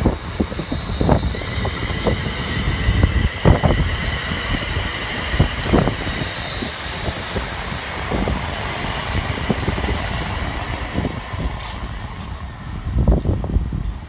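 London Northwestern Railway Class 350 Desiro electric multiple unit running past along the platform, with a steady high electric whine from its traction equipment and a few sharp clicks. Wind buffets the microphone in low gusts.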